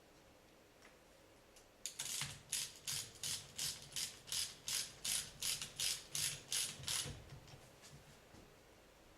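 A hand tool worked in quick back-and-forth strokes, about three sharp clicking strokes a second for some five seconds, starting about two seconds in.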